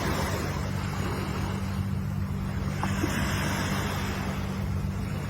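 Ocean surf washing in, with two swells of hiss, one near the start and one about three seconds in, over a steady low rumble.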